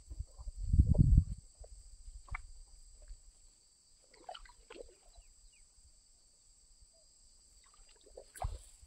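A wet nylon cast net being gathered and handled at the water's edge: faint rustles, drips and small splashes, with a low thump about a second in and a sharp swish near the end as the net is swung out to be thrown.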